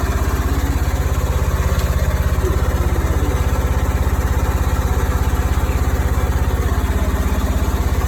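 Engine idling steadily, a low, even throb with no change in speed.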